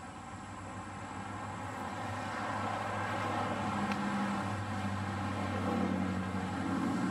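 Steady low mechanical hum, engine-like, slowly getting louder.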